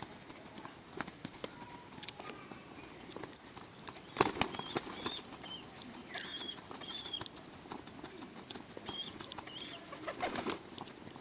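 A pigeon eating from a hand: a scatter of quick, sharp clicks as it pecks at the food, with a louder rustle about four seconds in. Short high chirps come and go through the middle.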